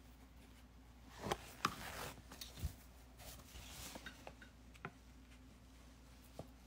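Faint handling of oil pigment sticks: a handful of light clicks and taps, the loudest about a second and a half in, with soft scraping as a stick is rubbed across the canvas.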